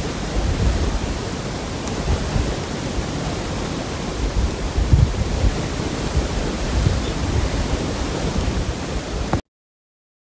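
Wind blowing across the microphone: a steady rushing noise with uneven low rumbling gusts, cutting off abruptly near the end.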